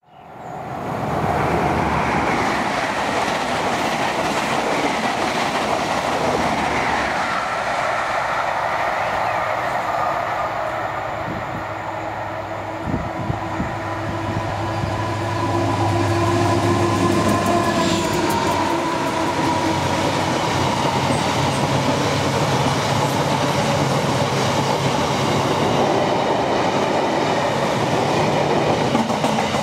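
A Class 59 diesel freight locomotive, a two-stroke EMD V16, roars through at speed, its engine note strongest as it draws level. A long train of box wagons follows, running loudly past.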